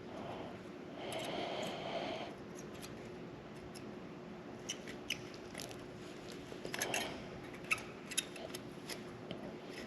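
Hand handling of motorcycle brake caliper parts: a short rustle about a second in, then scattered light clicks and taps as a part is fitted into the caliper, over a faint steady hum.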